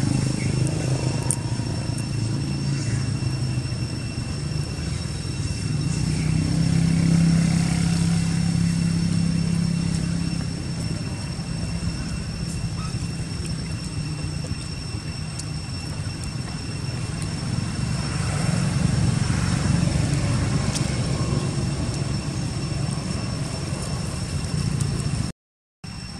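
Low, steady rumble of vehicle engines passing at a distance, swelling twice, with faint steady high-pitched tones above it. The sound cuts out briefly near the end.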